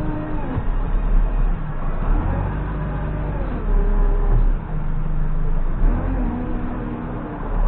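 Diesel engine of a JCB 3CX backhoe loader running under a heavy low rumble, its speed rising and falling several times as the machine works.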